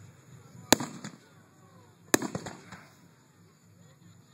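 Fireworks going off: two sharp bangs about a second and a half apart, each followed by a short trail of smaller cracks.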